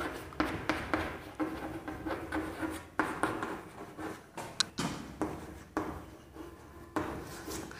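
Chalk writing on a chalkboard: irregular taps and short scratching strokes as letters are written.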